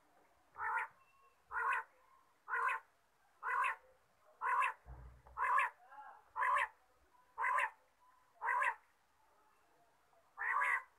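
Caged quail (batair) calling: a short, sharp call repeated about once a second, nine times, then a pause before it starts again near the end. A brief low thump comes about halfway through.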